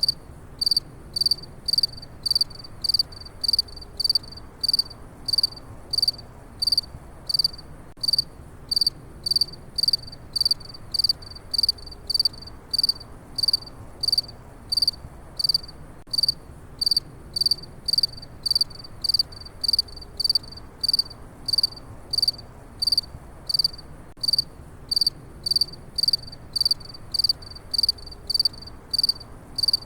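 Cricket chirping: a steady, even run of short, high-pitched chirps, about two a second, over a faint low background hum.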